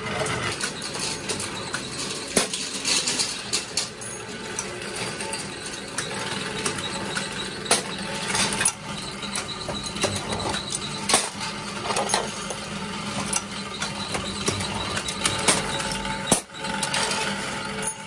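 Iron key blanks clinking and clattering against each other in irregular sharp clicks, over the steady hum of workshop machinery.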